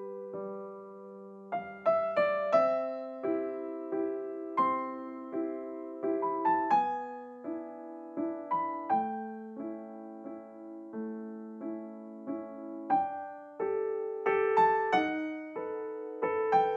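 Gentle solo piano background music: a slow melody of single struck notes over held lower chords.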